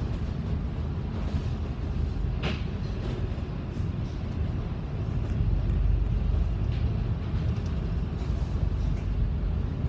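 Steady low rumble of a MAN ND323F double-decker bus's engine and drivetrain heard from inside as it pulls slowly through the interchange, with a few short clicks or knocks, the sharpest about two and a half seconds in.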